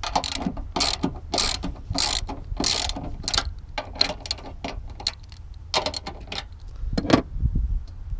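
Socket ratchet clicking in repeated strokes, about two a second for the first three seconds, then in sparser clicks, as 13mm strut tower nuts are worked loose. The nuts are stiff from debris in their threads.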